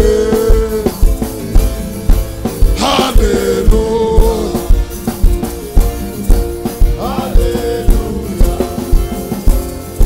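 Live worship music: a band playing sustained keyboard chords over a steady drum beat, with a voice singing over it now and then.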